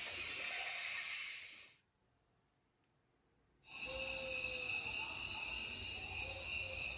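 Rivian R1 ambient-lighting theme sounds playing through the cabin speakers: one ambient soundscape of steady high tones with short notes fades out, and after about two seconds of silence a second soundscape starts, with two steady high tones and short notes over it.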